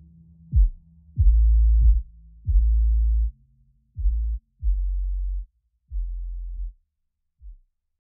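Electronic dance music made almost entirely of deep bass hits that start sharply and are held briefly. The hits come every half second to a second and grow quieter and sparser, with the last faint one near the end.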